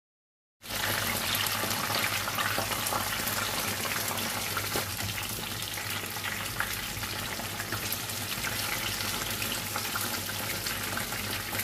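Battered stuffed tofu deep-frying in hot oil in a frying pan: a steady crackling sizzle that starts abruptly about half a second in.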